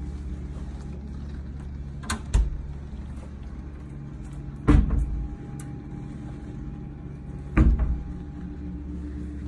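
A small door or cabinet shut with a double knock about two seconds in, then two more heavy knocks or thumps, over a steady low hum.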